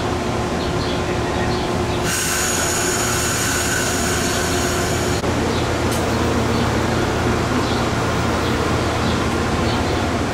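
Amtrak passenger train's stainless-steel Amfleet coaches rolling past: a steady low rumble of wheels on rail. A high squeal starts abruptly about two seconds in and stops about five seconds in.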